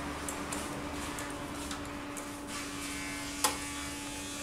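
Light metallic clicks and ticks of a wrench working a car battery's terminal clamp loose, with one sharp metal clink about three and a half seconds in, over a steady background hum.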